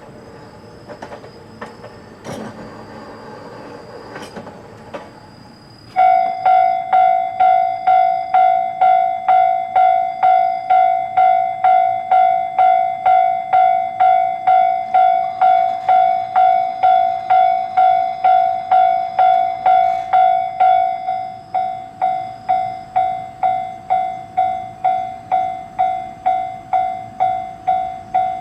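Japanese railway level-crossing warning bell starts suddenly about six seconds in, a pitched electronic ding repeating about twice a second. After about fifteen seconds it carries on noticeably quieter. Before it starts there is only a faint rumble with a few clicks.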